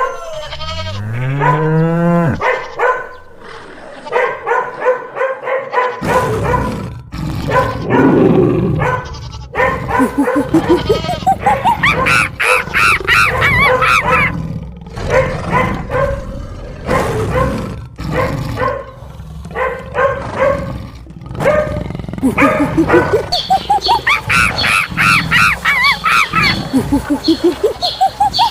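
Cartoon animal sound effects: a rising pitched call at the start, then a steady low rumble from about six seconds in with animal cries over it, including two long runs of rapid repeated cries.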